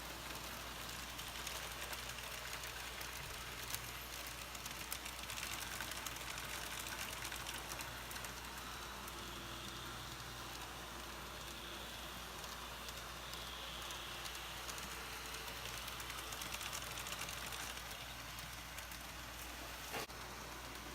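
Modemo N scale Tokyu trams running on KATO UNITRAM track: a faint, steady whirr and rattle of small motors and wheels, with a few light clicks as they pass over turnout points and crossings.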